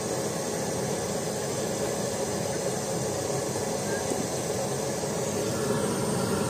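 Busy traditional market ambience: many overlapping voices of sellers and buyers blend into a steady crowd babble.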